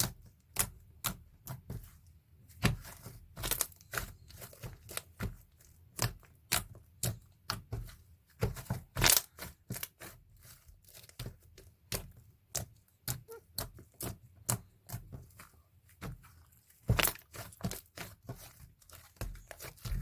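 An irregular run of sharp clicks and taps, a few a second, from small objects being handled, with louder clicks about nine seconds in and again near the end.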